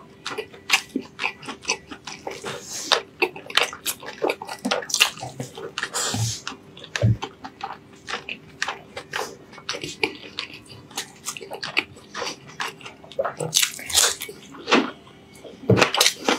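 Close-miked chewing of braised pork belly and rice: wet smacking and squelching with many quick lip and tongue clicks.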